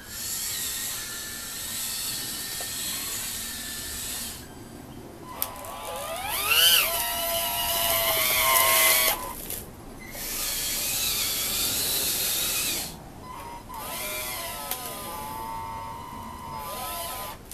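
Electric hydraulic pump of a model Scania 8x8 dump truck whining in four runs of a few seconds each with short pauses, its pitch sliding up and down, as the tipper bed is raised and then lowered. The loudest run comes about halfway through, while the load slides out of the raised bed.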